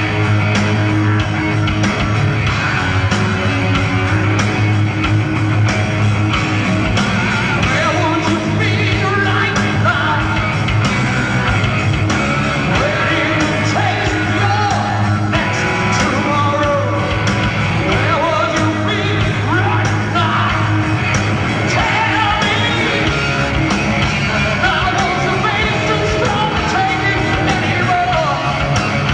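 Heavy metal band playing live, the lead singer singing and yelling over electric guitar, bass and drums, on a bootleg concert recording.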